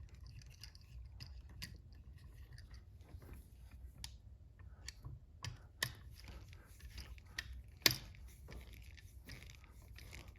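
Faint scattered clicks and light scraping of a screwdriver working the terminal screws of a combination switch device as wires are fastened, with a sharper click about eight seconds in.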